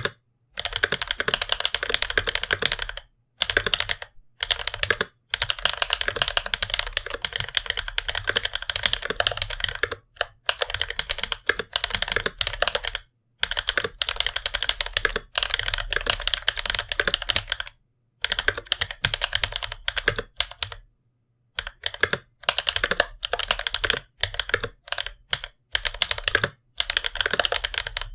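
Typing on a mechanical keyboard with tactile Bamboo Leaf Green switches, lubed with Tribosys 3203, on a brass plate with GMK keycaps. Fast runs of keystroke clacks are broken by brief pauses every few seconds.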